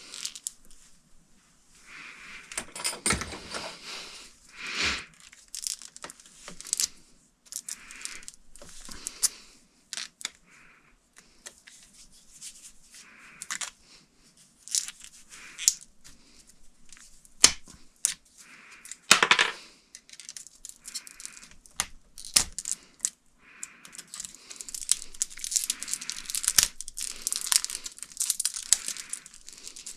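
Electrical cable being worked by hand: irregular rustling and tearing with many sharp clicks and knocks of wire and tools, busier near the end.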